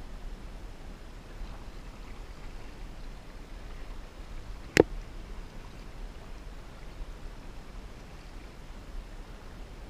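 Sit-on-top kayak being paddled, the paddle blades dipping and splashing in the water over a steady low rumble. About five seconds in there is one sharp knock.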